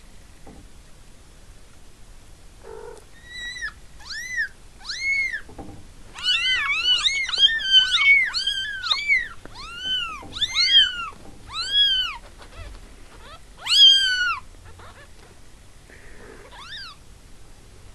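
Two-day-old kittens mewing: repeated high, thin arching cries that start a few seconds in, crowd and overlap from several kittens through the middle, then come singly near the end.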